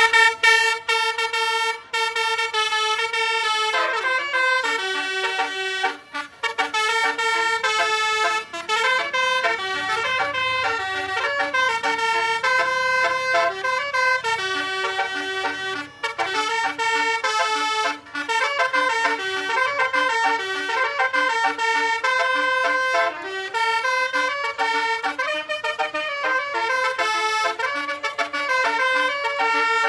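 Basuri musical bus horn (a telolet horn) playing a tune, its brassy notes stepping up and down in a continuous melody with a few brief breaks.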